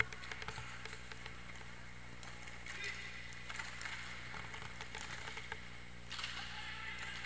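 Inline hockey in play: scattered clacks of sticks and puck over the rolling of skate wheels, with players' voices calling out.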